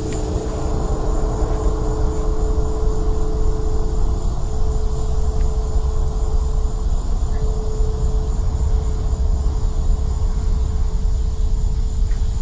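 A loud, steady low rumble with a held humming tone above it, unbroken throughout: one of the unexplained "strange sky sound" hums or rumbles.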